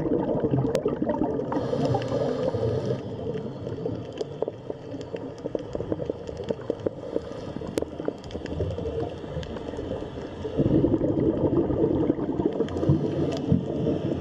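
Underwater recording: gurgling bubbles, with scattered faint clicks, a brief hiss about two seconds in, and louder bubbling from about ten and a half seconds in.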